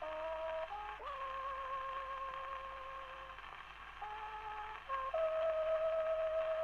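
Instrumental music: slow held notes in close harmony with a light vibrato, moving from chord to chord every second or two.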